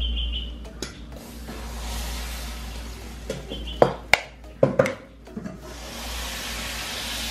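A few sharp clacks of a nonstick frying pan being handled on a gas stove's grate, clustered about four to five seconds in, over a soft steady hiss.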